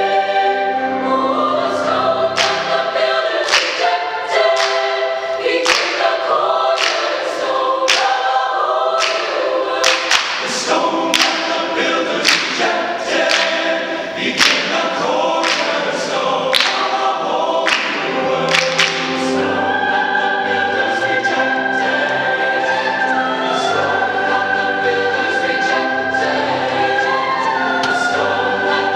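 Mixed high-school concert choir singing in harmony. The first two-thirds is a rhythmic passage with many crisp consonants sung together. From about two-thirds of the way in, the choir holds long sustained chords.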